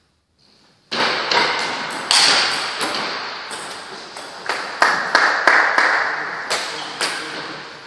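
A table tennis ball clicking in about a dozen irregular bounces and taps, each trailing the long echo of a large hall. The sound cuts in suddenly about a second in, after near silence.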